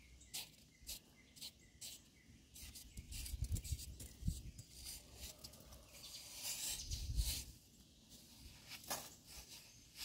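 A blade scraping and cutting into a packed sand tower: a run of short scrapes, then crumbling sand breaking away and falling in two louder spells, about three and seven seconds in.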